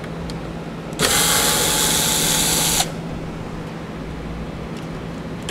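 Cordless drill running steadily for about two seconds as it backs out one of the two fasteners holding a taillight assembly, then starting again at the very end on the second fastener.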